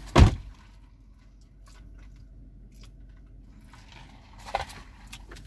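Car door slammed shut: one heavy thud heard from inside the cabin, after which the outside noise drops away to a low steady hum. A smaller knock follows near the end.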